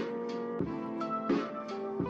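Instrumental background music with a steady beat, a new chord struck about every two-thirds of a second.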